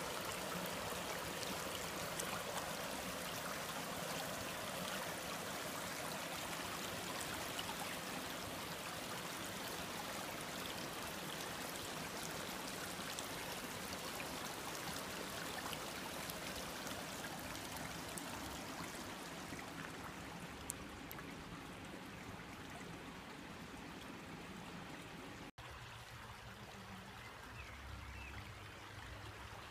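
Mountain stream flowing over rocks, a steady rush and babble of water. It slowly grows fainter in the last third, with a brief dropout about 25 seconds in, after which it is quieter.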